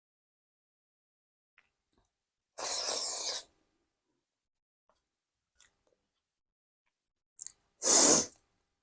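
Close-up eating sounds: two short bursts of chewing and crunching, the first about three seconds in and a louder, shorter one near the end.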